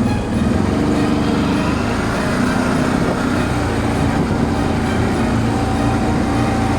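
Gepard quad bike engine running, a steady drone with a rough, noisy edge.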